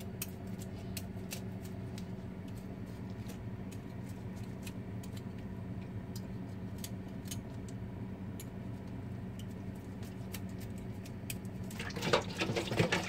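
Faint scattered clicks and wet handling sounds of a raw milkfish being cleaned by hand over a steel bowl in a kitchen sink, over a steady low electrical hum. About twelve seconds in comes a louder stretch of clattering in the sink.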